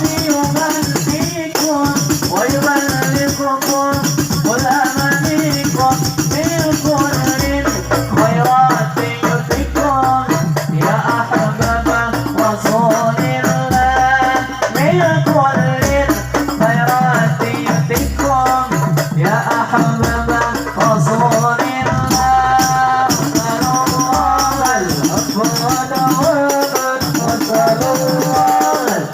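Hadroh ensemble playing: frame drums and jingling rattles carry a wavering melody line. Deep bass-drum beats come in about seven seconds in, roughly one a second.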